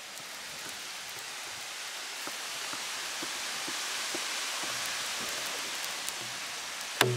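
A steady hiss, then near the end a tall wooden hand drum is struck once: a sharp slap followed by a low ringing tone. Its skin head is tuned with a ring of dried paste, which sets its pitch.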